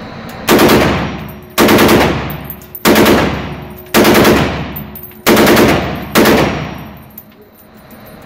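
FN SCAR 17 rifle in 7.62 NATO firing six short full-auto bursts, about a second apart, each ringing out in the echo of an indoor range.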